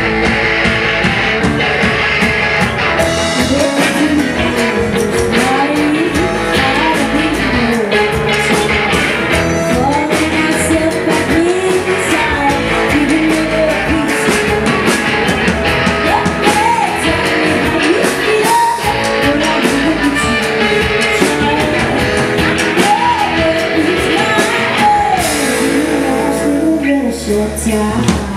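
Live indie rock band playing a song: electric guitars, keyboard and drums, with the lead singer singing into the microphone.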